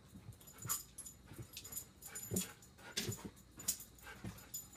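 Excited dog whining at the TV, over a run of short, sharp taps and clicks coming roughly every half second to a second.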